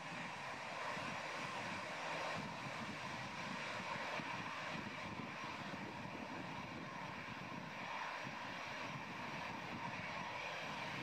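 Boeing 747-400 jet engines running steadily as the four-engined airliner taxis onto the runway: an even, continuous jet noise with no rise in power.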